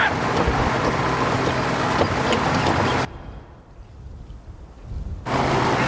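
Light aircraft engine drone and loud rushing wind as the plane stalls into a spin. The sound cuts away abruptly about three seconds in, leaving a low rumble, then surges back near the end.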